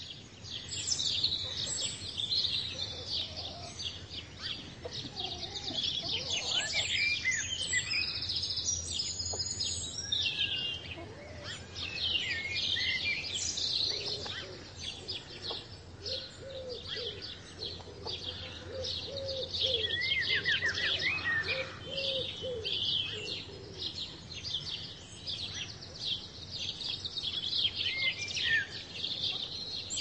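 A dense chorus of songbirds chirping and trilling, many calls overlapping, with a run of lower repeated calls in the middle and a steady low background hum underneath.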